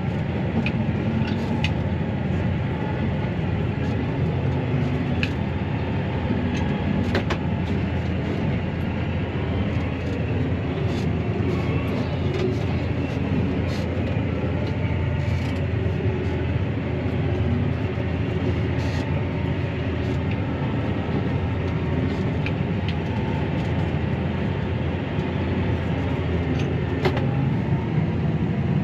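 Claas Arion 650 tractor's six-cylinder diesel running steadily under load while compacting silage, heard from inside the cab, with occasional faint clicks and rattles.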